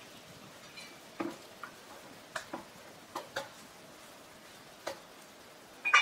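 About eight sharp, irregular clicks and knocks over a quiet background, the loudest just before the end.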